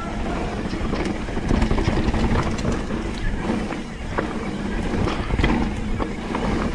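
Mountain bike riding fast down a dirt trail: wind buffeting the microphone and tyres rumbling over the ground, with many scattered sharp clicks and clatters from rocks, chain and frame.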